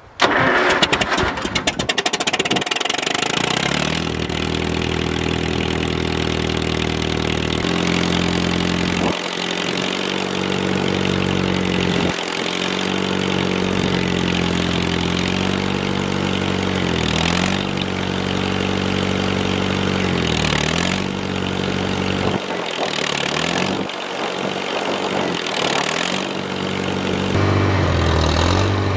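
Farmall M tractor's four-cylinder engine cranked on the starter and catching after about two seconds, then running steadily. Its speed dips and comes back several times. This is the first run after a new hydraulic lever and hose were fitted.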